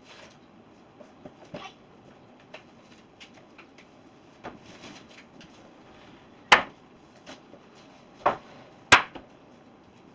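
Boards being unloaded and handled: scattered light knocks, then three loud, sharp knocks in the second half, the last two close together.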